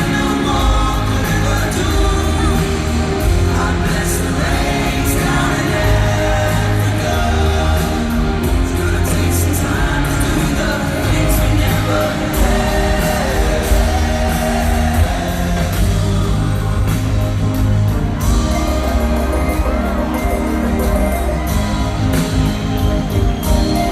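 A live rock band playing a song, with a lead vocal sung over guitars, bass and drums.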